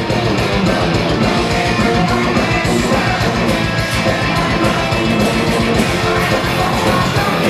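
Live rock band playing loud, heavy folk-rock: electric guitar over a steady drum beat, with a male singer.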